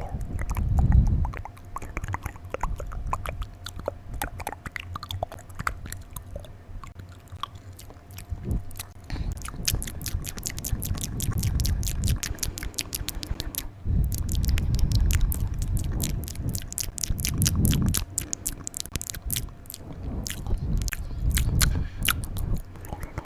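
Close-microphone wet mouth sounds: tongue clicks and smacks, growing into a fast, dense run of sharp clicks from about ten seconds in, with low rumbles between them.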